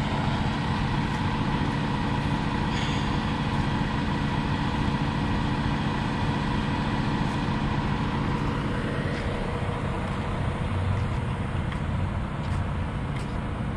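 Heavy-duty tow truck's engine running steadily as it pulls away slowly, towing a converted school bus by its lifted front end.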